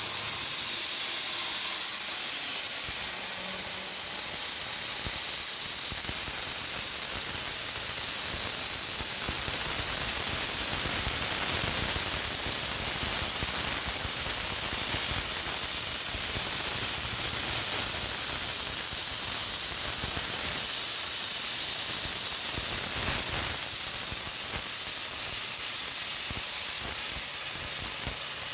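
CNC plasma cutting torch cutting metal: a steady hiss from the plasma arc and its air jet.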